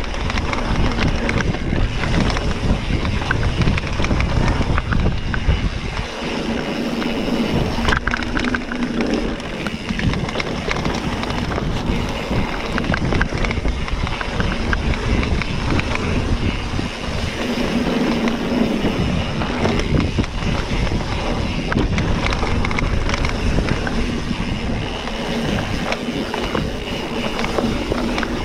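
A mountain bike rolling along a dirt trail: wind buffeting the microphone over a steady low rumble, with many small knocks and clicks from the bike and trail.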